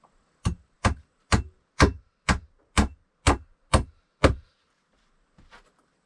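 Nine evenly spaced hammering blows on a wooden floor plank, about two a second, stopping a little after four seconds in.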